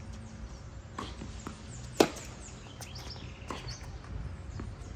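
Tennis ball struck by rackets and bouncing on a hard court during a rally, with one sharp, loud racket hit about two seconds in and fainter knocks from the other shots and bounces around it.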